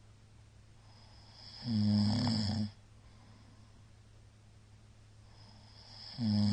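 A middle-aged man's loud, low-pitched snoring, heavy after a night of deep drinking: one snore lasting about a second comes about two seconds in, and the next begins near the end.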